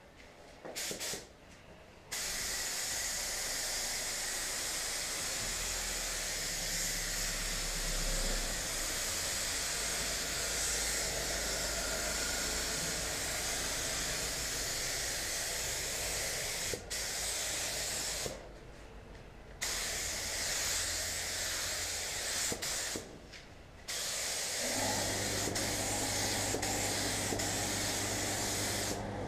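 Gravity-feed paint spray gun hissing steadily with compressed air as it sprays basecoat in passes over a car panel. The hiss stops briefly twice, about two-thirds of the way through and again a few seconds later. A low steady hum joins in near the end.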